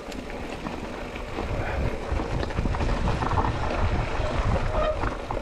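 Mountain bike rattling down a rough, rocky trail: tyres rolling over rock with irregular knocks from the bike, and wind rushing over the microphone.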